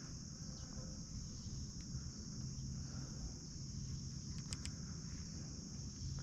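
Steady insect chorus, a continuous high-pitched trill like crickets, with a low rumble underneath and a couple of faint clicks about two-thirds of the way through.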